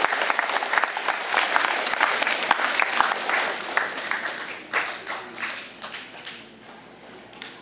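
A crowd of schoolchildren seated on the floor applauding. The clapping is loud at first, then thins out and fades away over the last few seconds.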